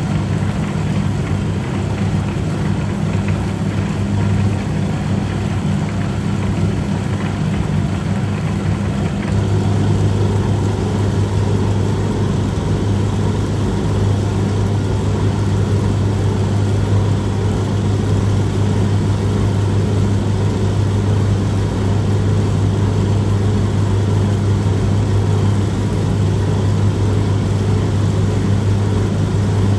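Noodle-cutting machine running steadily with a loud, even hum, which grows louder about nine seconds in.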